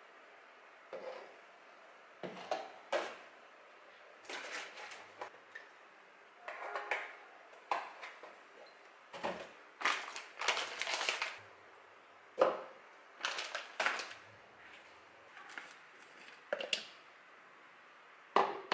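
Scattered knocks, clatters and rustles of smoothie ingredients going into a plastic blender cup: yogurt spooned in, and frozen dragon fruit chunks tipped from their bag, with a denser rattle about ten seconds in. A sharp knock comes near the end.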